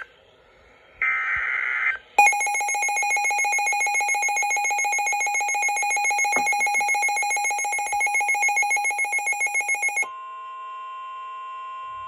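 NOAA weather radio receiver sounding a flood warning alert. The last two short buzzing bursts of the digital SAME header come first, then the receiver's electronic alarm pulses rapidly for about eight seconds. After that the steady weather alert tone holds for the last couple of seconds.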